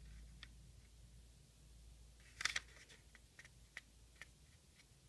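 Origami paper rustling and crinkling softly as a sheet is folded in half and pressed flat by fingers, with one louder crinkle about two and a half seconds in and a few faint ticks of paper and fingertips.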